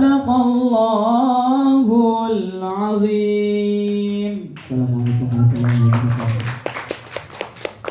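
A young man's voice singing unaccompanied through a microphone, holding long ornamented notes with vibrato. About five seconds in the line ends on a lower voice and a scatter of hand claps starts.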